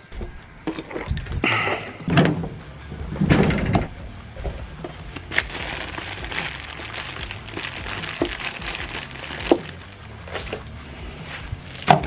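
Handling noises as kit parts and a plastic zip bag of wiring are moved about: a few heavy knocks in the first few seconds, then rustling with scattered sharp clicks.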